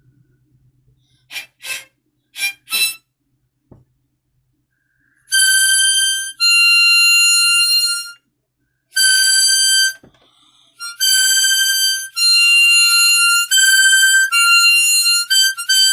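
Harmonica played on its highest notes: a few short toots, a pause, then long, loud, shrill held notes switching back and forth between two close pitches.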